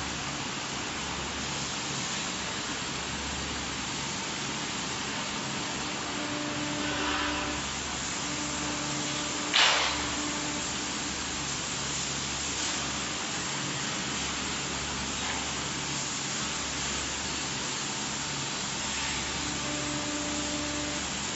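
Steady machine noise, a hiss over a low hum, from a CNC tandem press brake and its machinery, with one sharp clank about ten seconds in.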